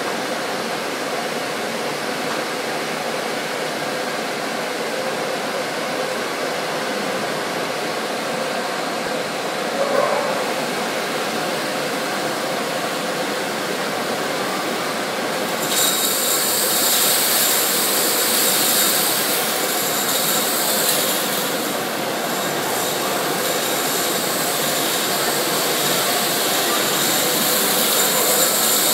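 Steady mechanical roar, with a single knock about a third of the way in. About halfway through, a brighter hissing rush joins it as an industrial vacuum cleaner's metal hose sucks ashes out of a cremation oven.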